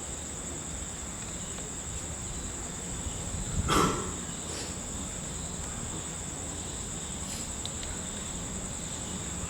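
Crickets trilling steadily in a high, unbroken drone. A single brief, louder noise about four seconds in stands out above it.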